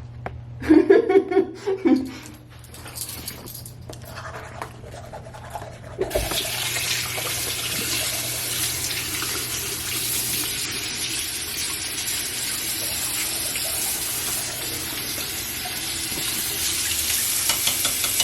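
Bathroom sink tap running: the water comes on about six seconds in and then runs steadily into the basin.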